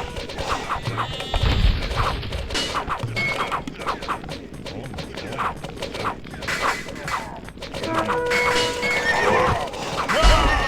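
Meme-style sound-effect mix: music with many short sharp hits, a warbling tone about a second in, and a wavering high-pitched call near the end.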